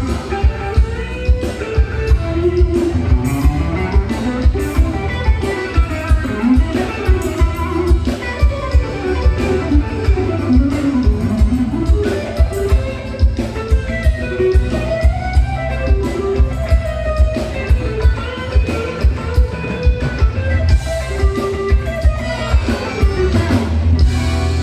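Live band playing an instrumental passage of gaúcho (southern Brazilian) music: a wandering melody over guitar and a steady drum beat of about two pulses a second.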